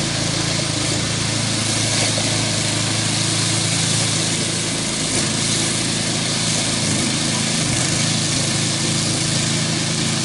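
Small petrol engine of a walk-behind mower running steadily as it is pushed through tall, thick grass.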